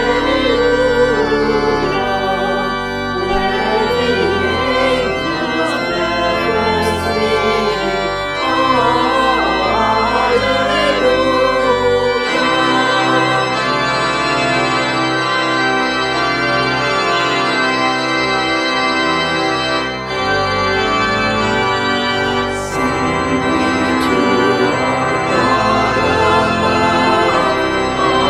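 Organ playing sustained hymn-style chords over a bass line. The deepest bass notes drop out for several seconds midway, then return.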